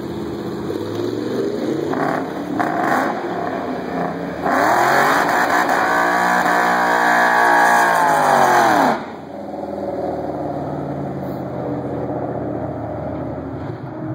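2012 Ford Mustang engine idling and blipped twice, then held at high revs for about four and a half seconds in a burnout with the rear tyres spinning, the engine note climbing and easing back before it cuts off sharply. It then runs low again as the car rolls forward.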